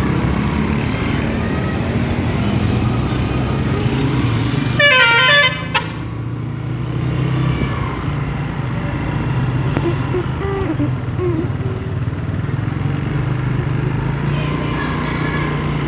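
Basuri telolet multi-tone bus horn playing a quick run of notes, about a second long, followed by a brief short toot, over a steady low engine hum.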